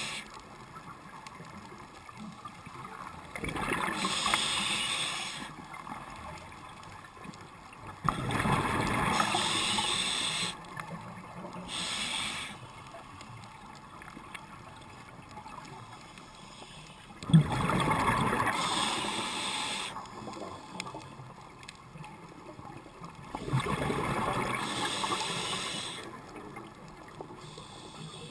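Scuba diver breathing through a regulator underwater: exhaled bubbles burst out and gurgle for about two to three seconds at a time, several times, with quieter stretches between breaths.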